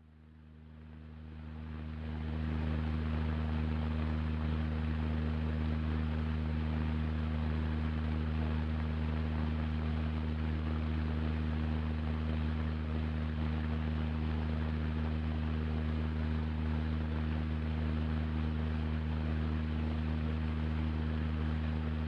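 Electric desk fan starting up and running: a low motor hum under a steady rush of air, building over the first couple of seconds and then holding steady.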